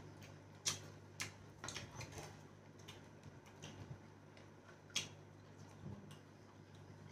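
Eating sounds of hand-eating at close range: irregular sharp smacks and clicks of chewing and lips. Several come in the first two seconds, with the loudest about five seconds in.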